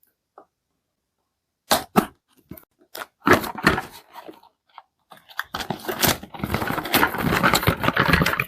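Product packaging being opened by hand: a few sharp snaps, then crinkling, and about five seconds in a dense, continuous crackling rustle of packaging being handled.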